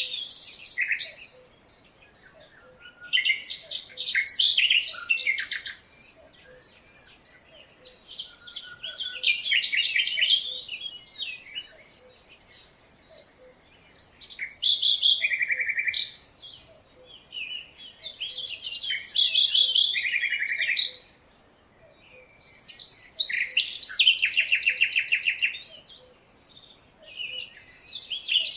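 Songbirds singing in repeated bursts of rapid, high chirps and trills, each lasting one to three seconds, with short pauses between.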